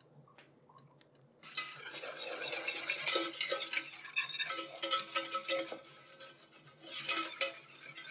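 Wire whisk scraping and clinking against a stainless steel saucepan as flour and olive oil are whisked together into a roux, starting about a second and a half in.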